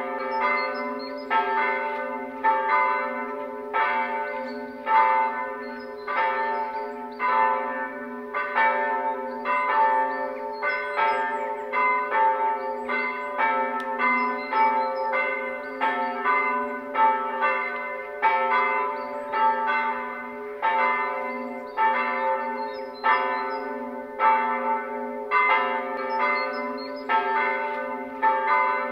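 Church bells ringing before the Sunday service, struck in quick regular succession about twice a second, their tones overlapping over a steady low hum.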